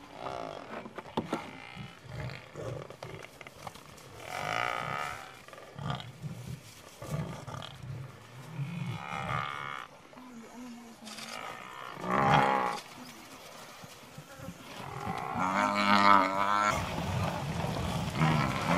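African buffalo bellowing and lions growling in a series of drawn-out calls a few seconds apart; the loudest, a long wavering bawl, comes near the end.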